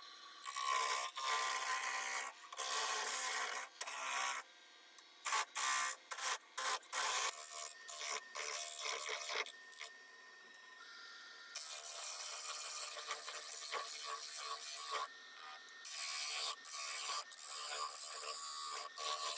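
A turning chisel cutting a spinning wooden blank with veneer inlays on a wood lathe, shaving it smooth in repeated passes. The cutting comes in bursts: a few long ones, several short rapid ones about five seconds in, then a longer continuous pass about halfway through.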